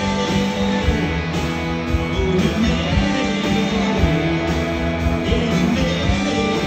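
Rock band playing live, guitar to the fore, in an instrumental passage.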